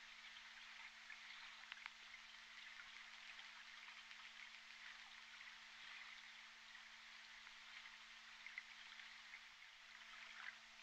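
Faint underwater hydrophone background: an even crackling, fizzing hiss with scattered sharp clicks and a steady low hum, with no clear orca calls.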